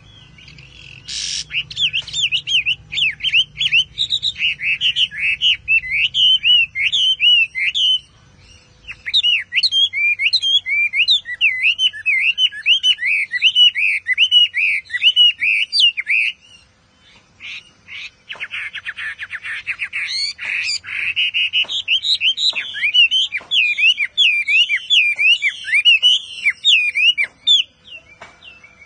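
Chinese hwamei singing long, varied phrases of rapid rising and falling notes, with short pauses about eight and sixteen seconds in.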